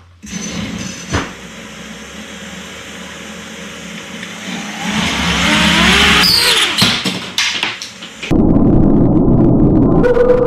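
FPV racing quad's brushless motors spinning up, a loud whirring whine that swells and rises in pitch, with a few sharp knocks near the middle as a propeller that was not screwed down tightly flies off. About eight seconds in, the sound changes abruptly to a deep, low rumble with a steady hum.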